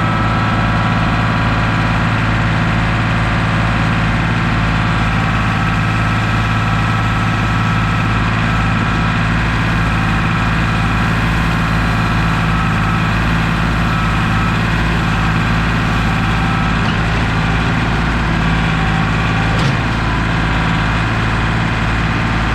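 Heavy equipment engine idling steadily at an even, unchanging pitch.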